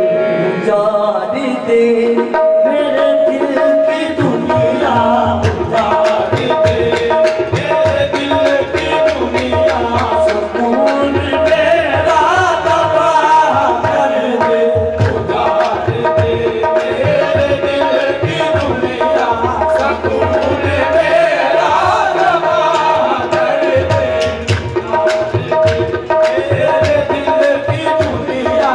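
Qawwali music: harmonium melody over a held drone note, joined about four seconds in by tabla and sharp hand-claps keeping a steady beat.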